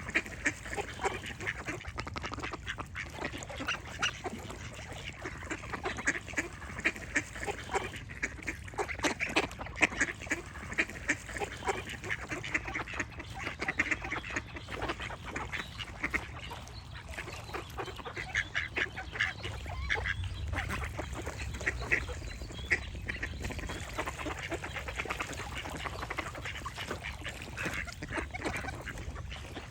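Ducks quacking over and over, many short calls in quick, overlapping runs, over a low steady rumble in the background.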